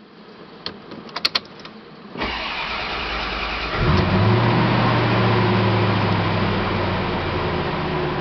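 1991 Chevrolet Corvette ZR1's LT5 32-valve V8 being started: a few clicks, then the starter cranking from about two seconds in, the engine catching about four seconds in and settling into a steady idle.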